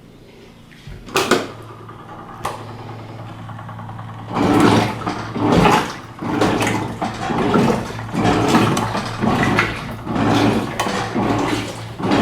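Electrolux LF90 top-loading washing machine agitating a load of rugs in low water: a steady motor hum, then from about four seconds in rhythmic surges of sloshing water a little faster than once a second, after a couple of short clicks.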